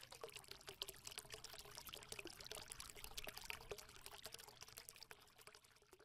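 Faint, dense crackling trickle, like liquid being poured, made up of many tiny clicks over a soft hiss. It fades out near the end.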